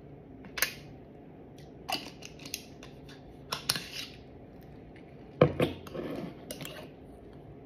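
Clicks and scrapes of a small glass jar with a metal screw lid being handled and its lid twisted shut, then a sharp knock about five and a half seconds in as it is set down.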